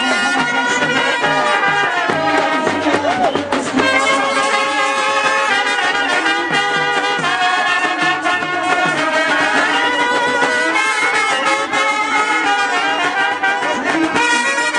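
Brass band playing a tune, trumpets and other horns sounding held notes together.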